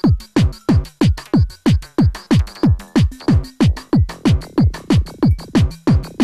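Korg Electribe EMX-1 groovebox playing an electronic drum pattern: a synthesized kick drum that drops quickly in pitch, about three beats a second, with hi-hats and short synth notes over it.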